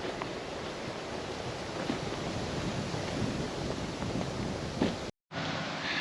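Wind buffeting the camera microphone, a steady rushing noise that cuts out for a moment about five seconds in.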